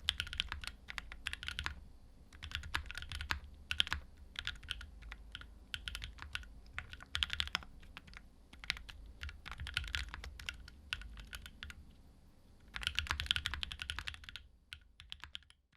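Typing on a Think6.5v2 custom mechanical keyboard with Konpeitou switches lubed with 205g0 and fitted with TX films, an FR4 plate and GMK keycaps. The keystrokes come in quick flurries with short pauses, and the typing stops near the end.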